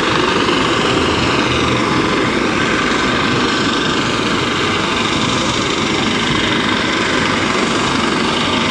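Coast Guard rescue helicopter hovering, a loud steady rotor and engine noise.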